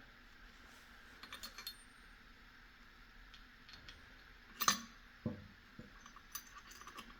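Steel transmission gears and shafts of a Suzuki RM250 engine clinking as they are fitted into the crankcase half: scattered light metallic clinks, with one sharper click about four and a half seconds in.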